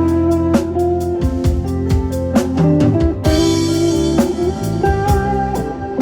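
Live band playing an instrumental: a guitar melody over drum kit and bass, with a cymbal crash ringing just past halfway.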